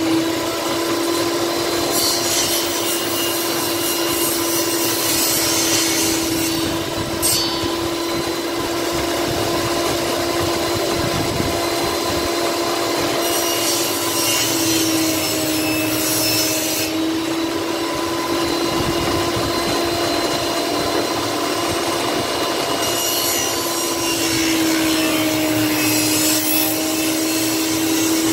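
Table saw running steadily while small pieces of wood are pushed through the blade in three cuts: the first about two seconds in, the second about halfway, the third near the end, each adding a rasping cutting noise over the motor's hum, which dips slightly in pitch as the blade takes the load.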